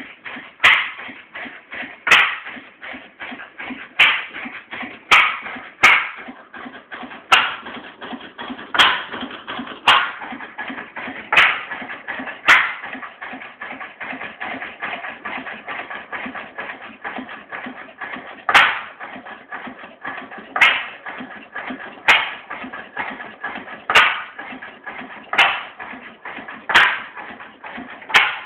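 1928 Massey-Harris stationary engine running, firing with sharp bangs at uneven gaps of one to two seconds, one gap of about six seconds near the middle, and a fast clatter of the running gear in between. It is running a little bit strange.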